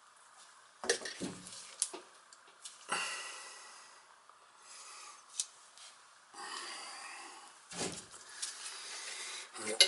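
PVC drain fittings and a can of pipe cement handled while gluing a joint: scattered light plastic knocks and clicks, with two short brushing or scraping swishes as cement is daubed on.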